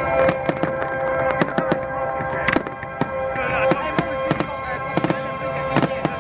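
Fireworks going off in rapid, irregular bangs and crackles, several a second, with a song playing underneath.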